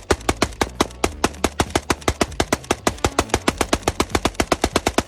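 Rapid, evenly spaced gunfire from AK-pattern rifles, an AK-47 and an RPK in 7.62x39, emptying 40-round magazines of steel-cased ammunition at about eight shots a second.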